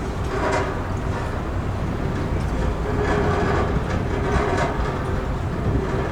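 Ship Kaministiqua entering a canal lock, with steady scraping and screeching noises over a low rumble and a faint held squeal. The scraping is unusual for a routine lock entry, and its cause is unknown.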